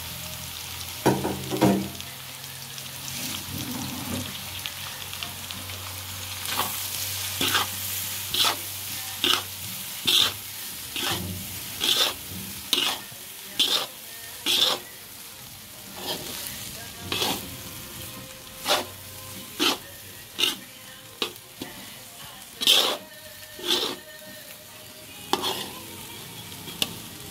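Metal spatula stirring fried rice in a hot pan, scraping and knocking against the pan in short strokes about once a second, over a steady sizzle.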